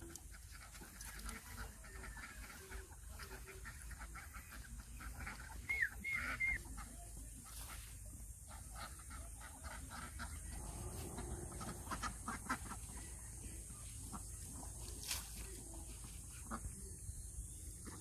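Farmyard waterfowl calling off and on, loudest about six seconds in, over a steady low rumble of wind on the microphone.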